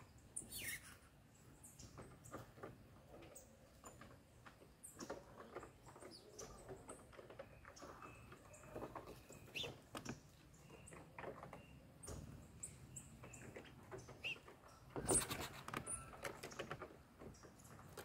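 Small birds hopping and pecking on a corrugated fibre-cement roof sheet: scattered light taps and scratches of feet and beaks, with a few short chirps, and a louder flurry of taps about fifteen seconds in.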